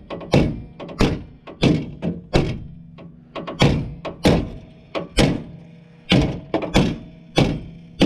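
Hammer pounding a bent part back into shape: a run of sharp strikes, roughly two a second and unevenly spaced.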